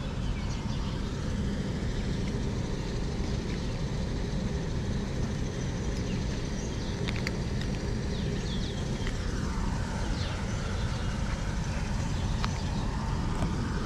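Steady low outdoor rumble with no change in level, like distant traffic or wind on the microphone, with a few faint clicks and chirps over it.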